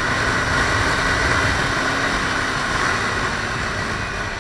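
Kawasaki Ninja 300 parallel-twin engine running steadily at cruising speed, under a loud, even rush of riding wind on the microphone. The level eases slightly near the end.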